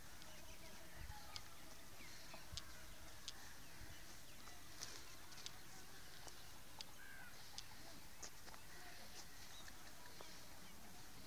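Faint outdoor farmyard ambience: a steady low hiss with scattered short, sharp ticks and a few faint bird chirps.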